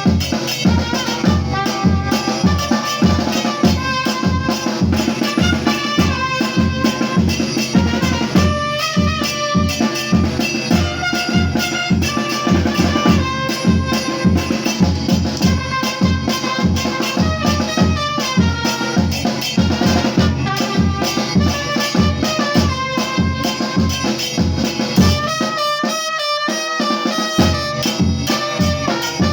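Upbeat music with a steady drum beat and a melody over it. Near the end the low drums drop out for about two seconds, then come back in.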